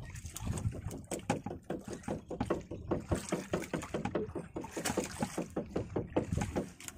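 Rapid, even knocking, about six knocks a second, on a small fishing boat.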